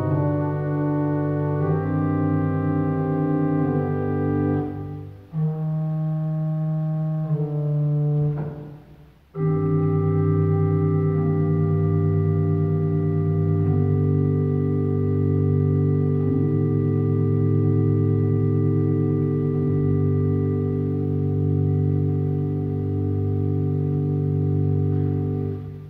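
Church pipe organ playing slow, sustained chords in phrases, with two brief breaks between them. It then holds a long final chord for about fifteen seconds, a few inner notes moving, before releasing it near the end.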